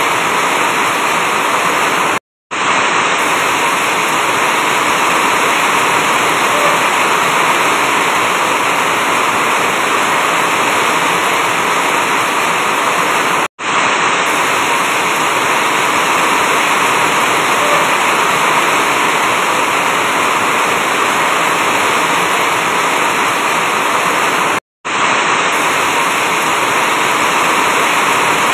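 Heavy rain falling on an asbestos-cement roof, a loud, steady hiss. The sound cuts out for a split second three times, about every eleven seconds, where the recording is spliced.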